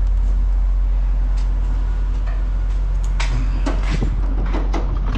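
A steady low rumble, with a run of sharp knocks and clatter starting about three seconds in.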